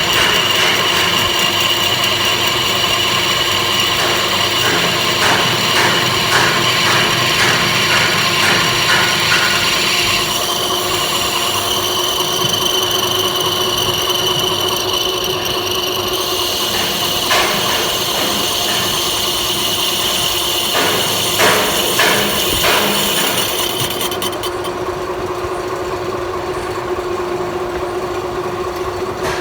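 Metal lathe running with a tool cutting the workpiece: a steady high whine over a steady lower hum, with scattered short clicks. The high whine stops a few seconds before the end while the lathe keeps humming.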